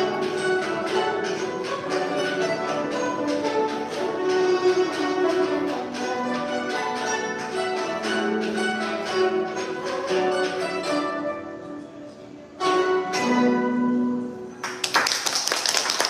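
An ensemble of guzheng, Chinese plucked zithers, playing a busy stream of plucked notes that thins and quietens. A final chord is struck about thirteen seconds in and rings briefly. Applause breaks out just before the end.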